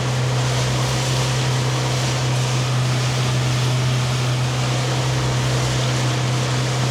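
Fishing boat's engine running steadily at cruising speed, under way, with a steady rushing noise over its low, even hum.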